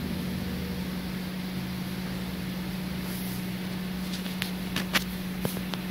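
Steady low electrical hum at one pitch, with a few short sharp clicks in the last two seconds.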